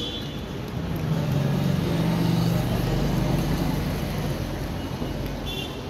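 A motor vehicle passing close by, its engine hum growing louder over about two seconds and then fading away.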